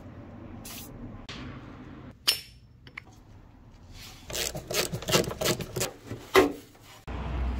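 Aerosol penetrating spray hissing in short squirts onto an exhaust oxygen sensor, then a sharp click and a run of ratchet wrench clicks as the sensor is loosened from the exhaust pipe.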